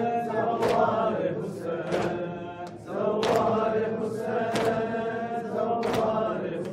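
Male voices chanting a noha refrain, with a steady beat of sharp chest-beating (matam) slaps, the strongest about every 1.3 seconds. The chanting dips briefly about three seconds in and then comes back.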